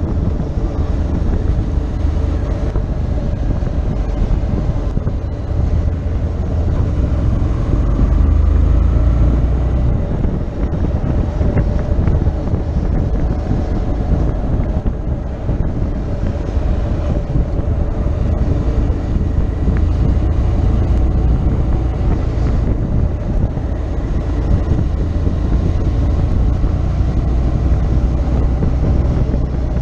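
Motorcycle engine running at road speed with wind rushing over the onboard camera's microphone, briefly louder about eight seconds in.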